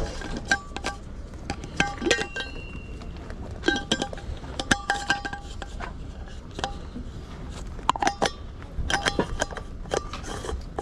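Irregular light clinks and knocks, a dozen or more, each with a brief ring at the same few pitches, like hard objects such as crockery or glass knocking together.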